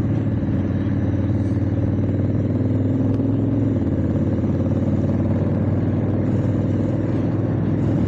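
Honda Africa Twin's parallel-twin engine running under way, with wind and road noise. The engine note rises slightly, then drops a little before four seconds in.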